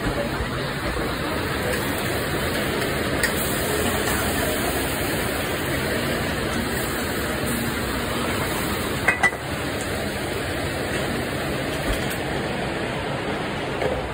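Steady background noise of a working restaurant kitchen, with a few clinks and knocks of metal pans and dishes. The loudest is a pair of sharp knocks about nine seconds in.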